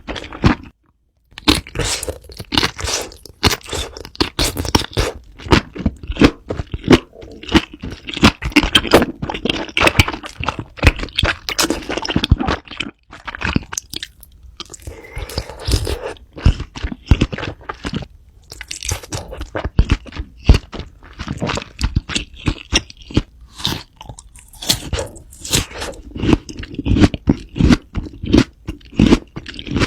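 Close-miked crunchy chewing and biting of food, many sharp crackling crunches in quick runs with a few short pauses between mouthfuls.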